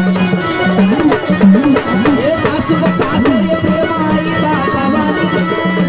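Marathi gondhal folk music: hand drums keep a rhythm under a wavering melody line and a held drone.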